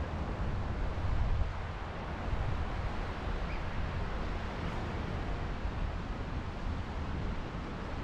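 Wind buffeting the microphone with a deep, uneven rumble, over a steady wash of beach surf.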